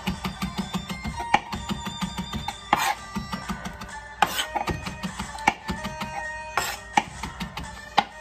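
Chef's knife chopping fresh oregano on a plastic cutting board: quick repeated chops, several a second, with a few harder strokes. Background music plays underneath.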